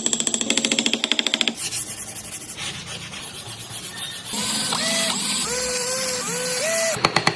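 Wood being sanded: a steady hiss carrying a string of short squeaks that rise and fall, after rapid rhythmic clatter in the first second or so.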